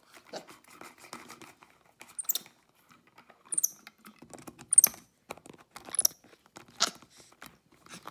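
Capuchin monkey handling and mouthing a plastic screw-top bottle cap: a busy run of small plastic clicks, scrapes and gnawing, with short, very high squeaks about every second or so.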